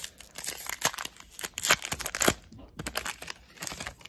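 Foil wrapper of a trading-card pack crinkling and tearing as it is handled and ripped open, in a run of irregular crackles, loudest about two seconds in.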